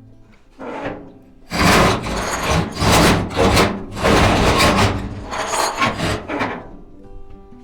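A series of loud, rough scraping strokes, about five over several seconds with short gaps between them.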